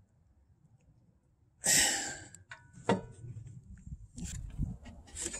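A short, loud, breathy exhale of effort about a second and a half in, followed by a sharp click and scattered light metal clicks and knocks from work on the car's rear suspension.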